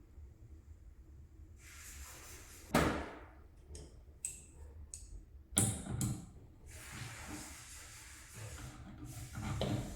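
Handling noises: rustling, broken by two sharp knocks and a few brief clicks.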